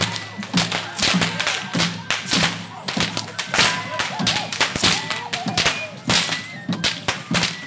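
Tlacololero dancers' whips cracking: a fast, irregular run of sharp, loud cracks, several to the second.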